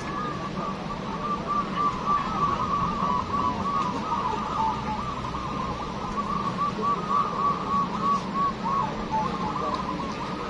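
Several zebra doves (perkutut) cooing, their runs of short arched notes overlapping in a continuous chorus.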